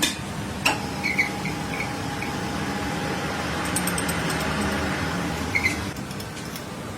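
Workshop machine, most likely the lathe turning the piston, running with a steady hum. A few sharp metallic clicks and short high squeaks break in over the first couple of seconds and again near the end.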